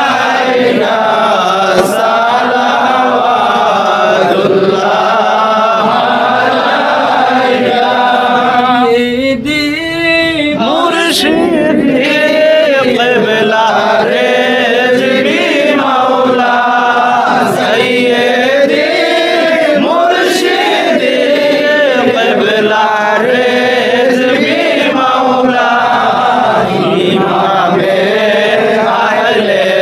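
A group of men chanting together in unison, a Sufi devotional chant. The voices thin briefly about nine seconds in, then rise again with wider swings in pitch.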